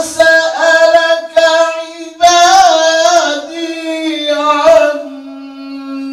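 A male qari's voice chanting Quran recitation in the melodic tajwid style, amplified through a microphone: ornamented, wavering phrases that settle into one long held note in the second half.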